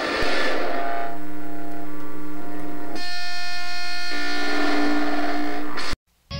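Loud electronic drone of sustained, horn-like chords, opening with a wash of hiss that fades over the first second. The chord shifts about a second in, again about three seconds in and a second later, then cuts off abruptly near the end.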